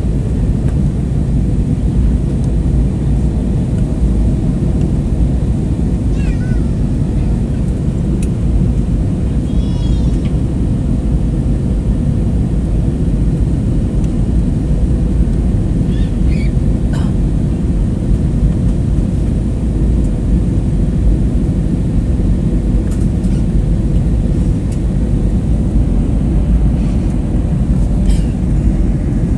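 Steady, loud cabin noise of an airliner in flight, a deep even rush of engine and air noise with a faint steady hum. A few short, high-pitched cries with a falling pitch cut through it now and then.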